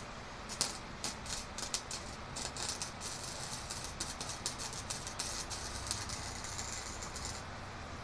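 Wire-feed welding arc crackling: a few short sputtering starts in the first two seconds, then a steady crackle for about five seconds that cuts off near the end.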